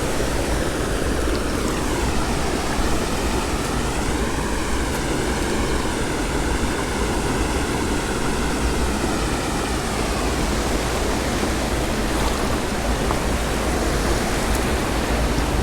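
Small spring creek's water running: a steady, close rush.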